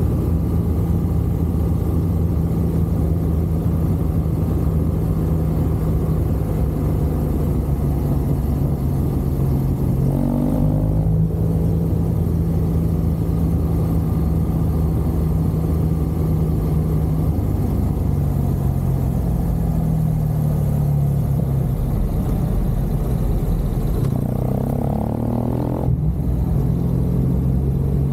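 BMW R1200 GSA's boxer-twin engine running under way, a steady engine note. The pitch rises briefly about ten seconds in and again near the end.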